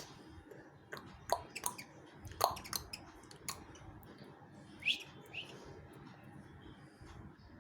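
Pet bird giving short, sharp chirps and clicks: a cluster of them from about one to three and a half seconds in, then two more near five seconds.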